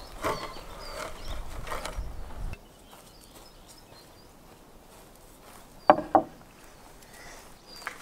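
Outdoor ambience: a low rumble and a few knocks as a wooden table is handled, stopping suddenly about two and a half seconds in. Faint high chirps follow, then two short, loud sharp sounds in quick succession about six seconds in.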